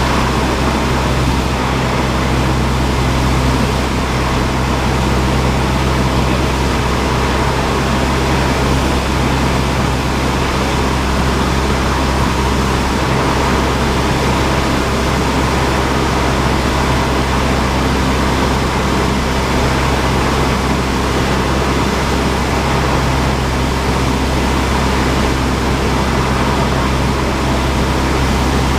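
Cockpit noise of a Cessna 172: the single piston engine and propeller running at a steady, unchanging power, a loud low drone with a rushing hiss over it.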